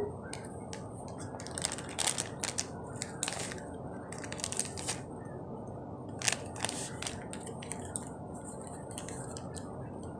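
Dry cornstarch being handled and eaten from its paper-lined box: scattered bursts of crinkling and crunching, in clusters about a second apart, loudest a little past six seconds in.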